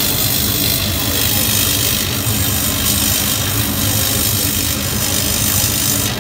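Laser cutting machine running while it cuts: a steady mechanical hum with a constant hiss over it.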